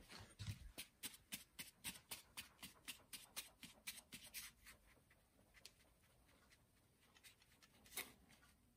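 Flour being sifted through a plastic sieve over a mixing bowl, the sieve tapped and shaken by hand: faint, quick ticks about four a second that thin out about halfway, with one louder knock near the end.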